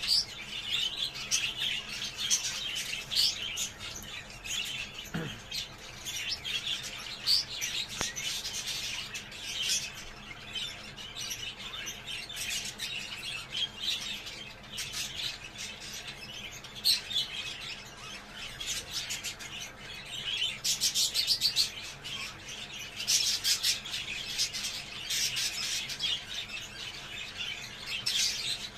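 Budgerigars chattering and warbling in a continuous busy stream of short chirps and squawks.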